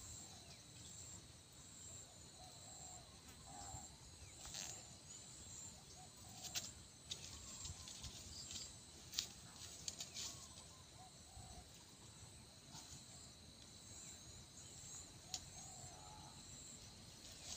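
Quiet outdoor ambience: faint, scattered bird chirps over a steady high-pitched hum, with a few soft clicks.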